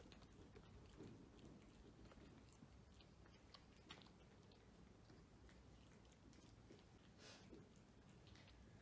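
Faint sounds of a cat chewing and crunching food from a plate: scattered soft clicks and crunches over a low steady hum.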